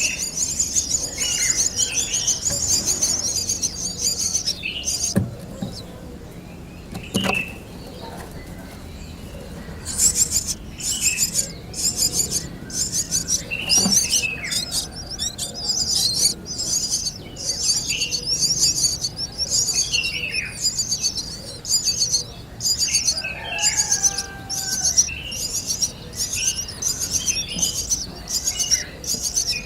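Nestling birds chirping, with rapid high calls at first. After a quieter stretch, the calls come back as a steady run of about two short high chirps a second, typical of chicks begging for food.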